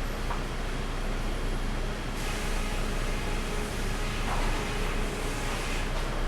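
Sawmill machinery running steadily: a constant low hum under an even rushing noise.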